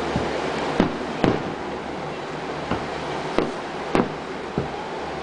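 Aerial firework shells bursting: about six sharp bangs at irregular intervals, over a steady rushing background.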